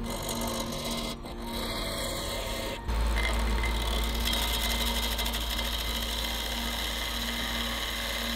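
Gouge cutting a wood blank spinning on a lathe: a steady rasping scrape of the tool on the wood over the lathe's steady hum, a little louder after about three seconds.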